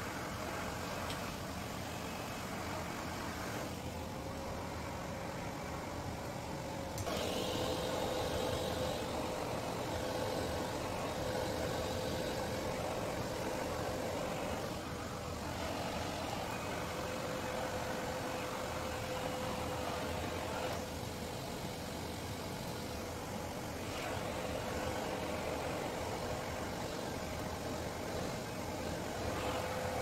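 Handheld hair dryer running, a steady rush of air with a thin motor whine. It gets louder about a quarter of the way in and dips briefly a couple of times.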